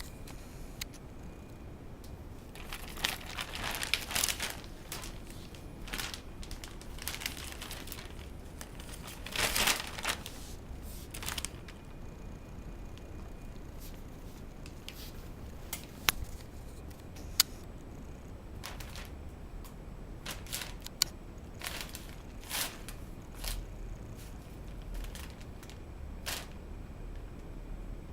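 Kitten moving about in a cheap basket, making irregular crinkling and rustling, busiest in two spells, with a few single sharp clicks later on.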